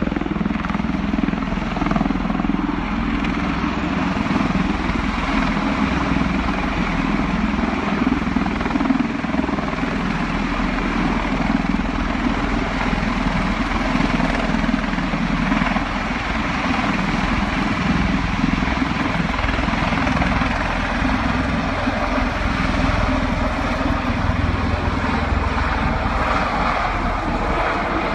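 Bell Boeing CV-22 Osprey tiltrotor flying low in helicopter mode, nacelles tilted up: a steady, loud drone of its two large proprotors and twin Rolls-Royce AE 1107C turboshaft engines.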